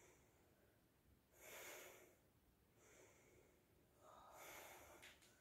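Faint deep breathing, with two long breaths about a second and a half in and again near the end.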